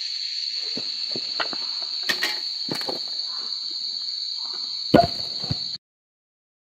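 Steady high-pitched drone of forest insects, with scattered knocks and rustles as cut log sections are handled. A heavy thump about five seconds in, the loudest sound, as a sawn wooden log is set down; then all sound cuts off abruptly.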